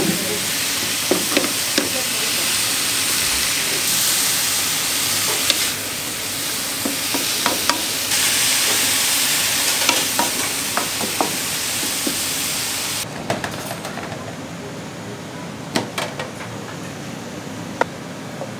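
Food sizzling loudly as it cooks, with scattered sharp clicks and knocks of utensils. The sizzling cuts off suddenly about two-thirds of the way through, leaving quieter background with a few knocks.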